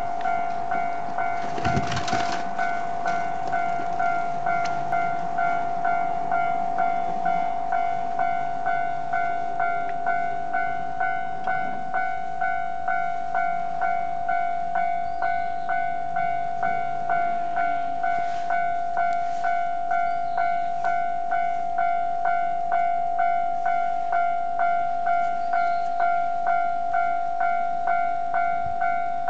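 Japanese railway level-crossing alarm ringing, an electronic bell striking one high tone over and over at about three strikes every two seconds. A brief loud noise cuts in about two seconds in.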